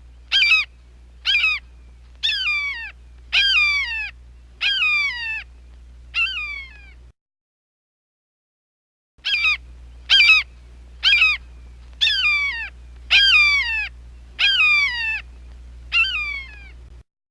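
Hawk screeching: a run of seven harsh, falling calls, the first ones short and the later ones drawn out. After about two seconds of silence the same run repeats. A low hum sits under the calls.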